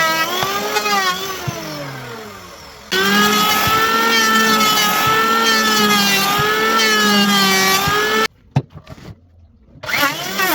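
Electric hand power tool motor running at high speed, its whine dipping and rising in pitch as it is pressed into and eased off the wood. It breaks off abruptly about three seconds in and picks up again, then drops out briefly near the end.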